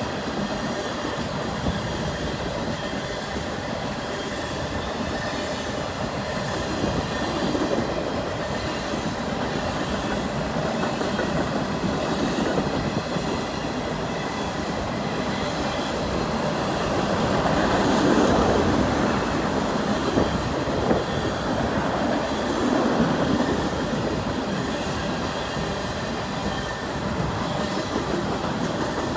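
CN freight train's cars rolling past: a steady rumble of wheels on rail with scattered clicks, swelling louder about two-thirds of the way through.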